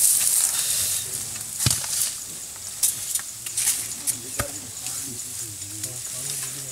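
People talking quietly in the background, over a steady high hiss and a few sharp clicks.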